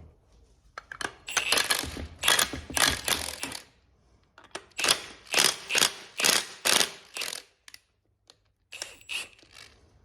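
Metal brake caliper parts clinking and scraping against each other in runs of quick, sharp strikes: two long runs, then a shorter one near the end.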